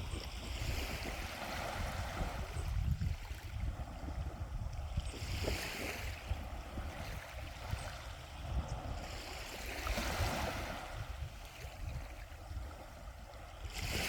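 Sea waves washing in, the surf swelling and fading about every four to five seconds, over a steady low rumble.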